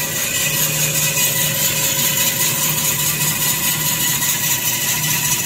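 Tissue paper converting machinery running in the factory: a steady mechanical hum and hiss with a faint constant whine, unchanging throughout.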